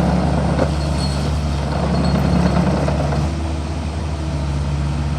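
Diesel engine of a Volvo ECR50D compact excavator running steadily. A little past halfway it eases slightly and a steady higher hum comes in alongside.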